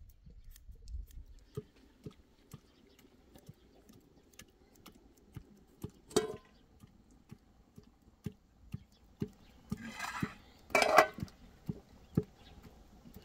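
Wood fire crackling under a cooking pot in irregular sharp snaps. There is a louder metal clatter about six seconds in and two brief scraping clatters of pot and utensils around ten and eleven seconds, the second the loudest.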